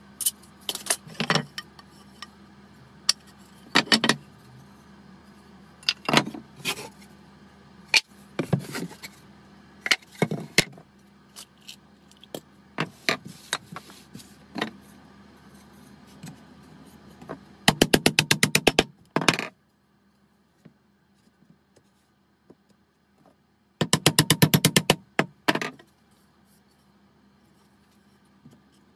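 Wooden hive box boards and a metal bar are handled and set down on a bench, giving scattered knocks and clinks. About 18 s in and again about 24 s in come two runs of rapid, evenly spaced hammer taps on the wooden super box joints. These are the loudest sounds.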